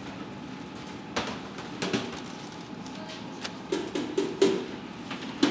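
Several light knocks and taps from handling glazed drum-shaped buns and setting them down on a tray, with a cluster of knocks about four seconds in, over a steady background hum.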